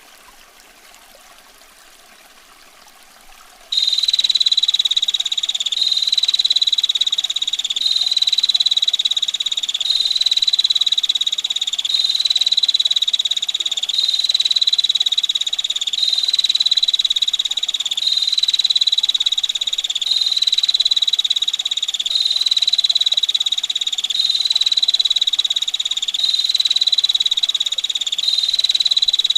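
Female bar-winged prinia (prenjak betina) giving a continuous, rapid, harsh rattling trill, repeated in near-identical one-second units as a looped recording. It starts suddenly about four seconds in over faint running water.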